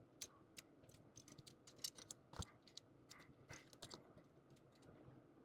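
Faint, irregular clicks and taps of small plastic model-kit parts being handled and fitted together.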